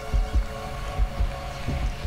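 Irregular low thumps of wind and handling on the microphone, two or three a second, over a faint steady hum.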